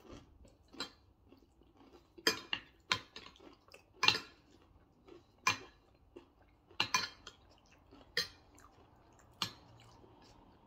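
Metal forks clinking and scraping against ceramic dinner plates: about ten sharp, irregular clinks.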